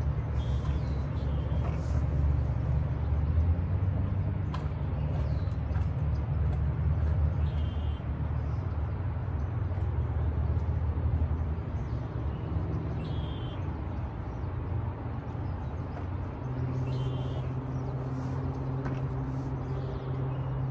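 Steady low outdoor rumble, with short high bird chirps every few seconds. About three-quarters of the way in, a steady low hum joins it.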